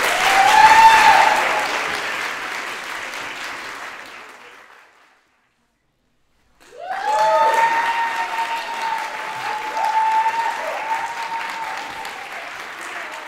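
Audience applauding with cheering voices, loud at first and fading out over about five seconds. After a moment of silence, a second round of applause and cheering starts about seven seconds in and carries on.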